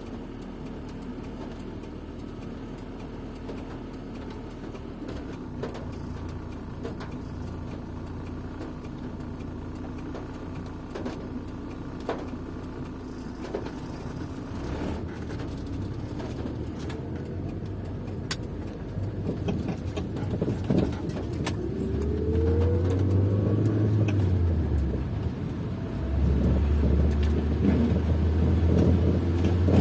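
Car driving on a wet road, heard from inside the cabin: a steady engine and road hum that grows louder in the second half. Near the end the engine pitch rises and falls as the car speeds up and eases off.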